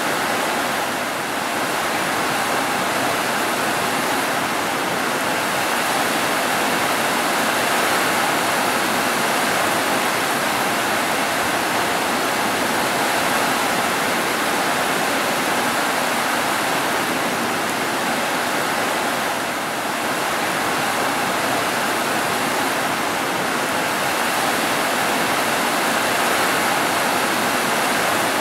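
Heavy rain pouring down onto roofs: a dense, even hiss of falling water. It eases very slightly about a second in and again near twenty seconds.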